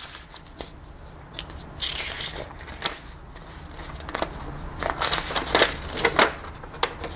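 Folded paper instruction leaflet being handled and unfolded, crackling and rustling in irregular sharp crackles that come thickest near the end.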